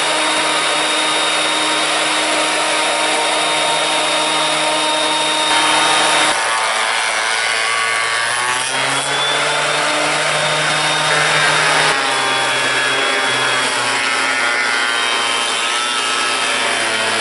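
Performax benchtop jointer running, its cutterhead planing the rough underside of a driftwood log as it is fed across. The running note shifts a couple of times as the load on the cutter changes.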